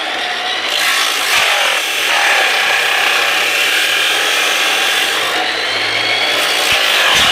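Chop saw running and cutting into a plastic Nerf blaster: a loud, steady whine with grinding.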